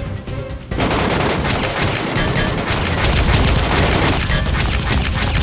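Rapid gunfire sound effect starting about a second in, several shots a second like a machine-gun burst, dubbed over background music for a Nerf blaster being fired.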